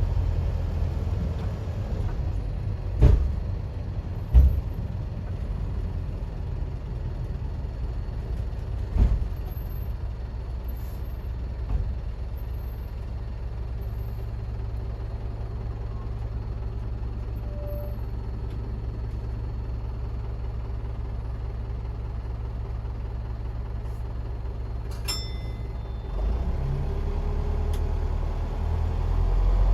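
Inside a DMV dual-mode vehicle (bus and railcar) under way: a steady low engine drone with a few heavy knocks in the first ten seconds. Near the end the engine grows louder.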